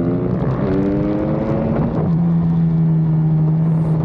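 Racing pit bike's single-cylinder four-stroke engine at full throttle. The pitch climbs and drops back at upshifts about a third of a second in and again at about two seconds, then holds steady.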